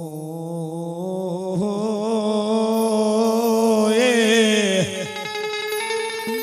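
A man's devotional folk singing: one long held note with a wavering vibrato, stepping up once and gliding higher before it breaks off about five seconds in. An accompanying instrument then plays a quick run of short notes.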